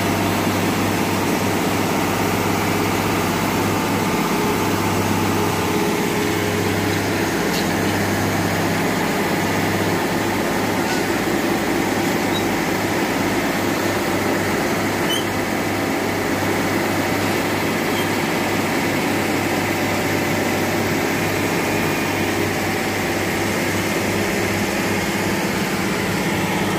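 Engine of a yellow railway track-laying machine, loaded with concrete sleepers, running steadily with a constant low hum.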